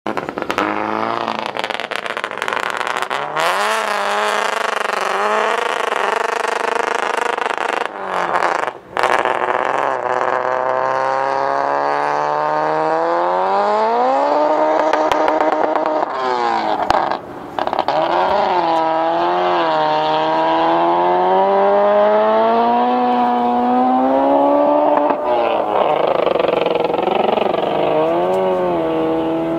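Honda CRX land-speed car accelerating hard away at full throttle, its engine note climbing in pitch through each gear and dropping back at every upshift, several times over.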